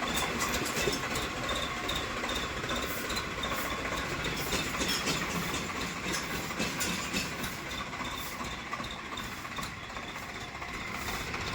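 Diesel tractor engine running with an aftermarket turbo-whistle attachment fitted, a thin high tone sitting over the steady engine noise.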